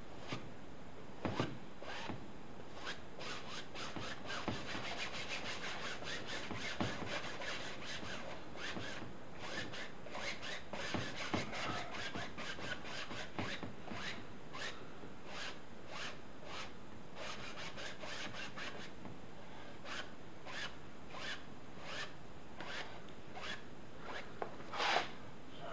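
Paintbrush scrubbing oil paint onto canvas: a dry, rasping rub in quick, repeated back-and-forth strokes.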